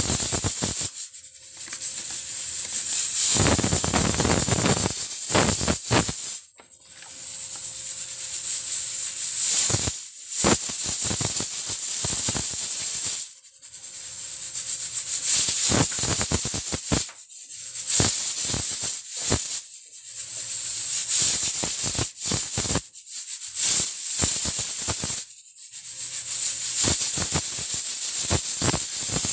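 Pressure cooker's weighted regulator rocking on its vent, letting out steam in a loud hiss with a rattle, broken by short pauses every few seconds: the cooker is up to full pressure and cooking.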